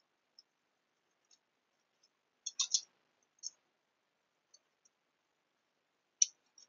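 Scattered light, high clicks and ticks, with a quick cluster of them about two and a half seconds in and a single sharper click near the end.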